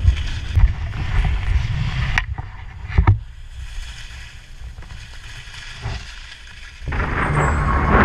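Wind buffeting an action camera's microphone as a skier runs downhill, with skis scraping over packed snow, a low rumble and hiss. There are two sharp knocks about two and three seconds in. The sound drops in the middle and grows loud again near the end.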